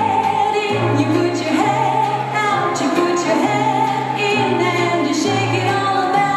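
A song with group singing over a bass line of held notes that change about once a second.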